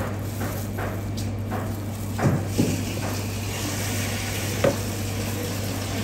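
Steady low kitchen hum and hiss, with a few light knocks of a kitchen knife and leaves being handled on a cutting board. The sharpest knocks come about two and a quarter and four and a half seconds in.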